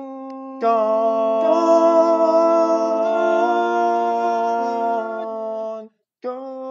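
Several voices humming long held chords in close harmony, without words. A soft chord opens, a fuller chord swells in about half a second in, the harmony shifts a few times, and it breaks off briefly near the end before the next chord starts.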